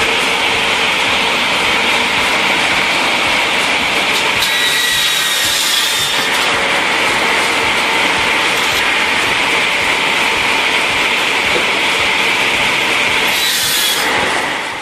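Three large circular saw discs on a firewood cutting machine running and cutting through logs that a rotating rack feeds in continuously: a loud, steady saw noise, with a brief higher whine about five seconds in.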